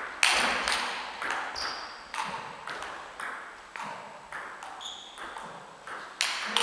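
Table tennis rally: the ball clicking off bats and table in quick, irregular succession, each hit echoing in the sports hall. Two short high squeaks sound between the hits.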